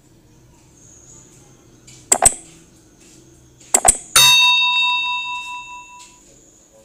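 Subscribe-button animation sound effect: a sharp click about two seconds in, another a second and a half later, then a notification-bell ding that rings out and fades over about two seconds.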